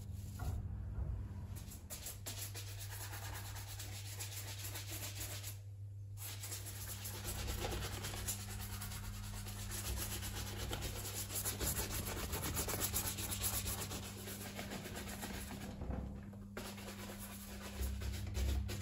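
Horsehair shoe brush scrubbed rapidly back and forth over the leather upper of a dark blue loafer, buffing in a conditioning cream. The brushing breaks off briefly about a third of the way in and again near the end.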